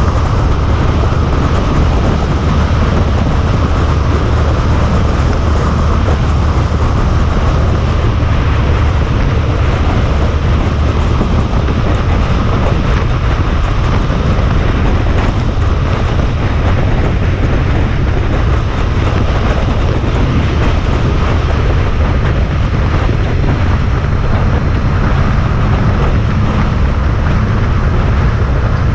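Honda ST1300 Pan-European touring motorcycle cruising at a steady road speed: an even low engine drone under wind rush and tyre noise on the bike-mounted camera, holding level throughout.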